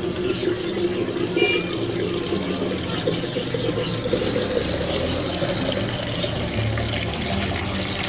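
Water running from a tap into a jug, the filling sound rising slowly in pitch as the jug fills.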